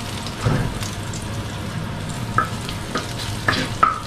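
Oil sizzling steadily in a nonstick frying pan as chopped garlic is fried until golden, with a wooden spatula stirring and scraping against the pan in short strokes, several of them in the second half.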